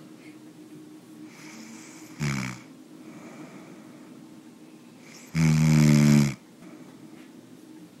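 A person snoring: a short snore about two seconds in, then a louder, longer snore lasting about a second past the five-second mark, over a faint steady hum.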